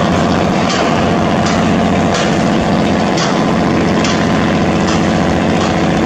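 River passenger launch's diesel engine running steadily at close range, over the rush of water at the bow.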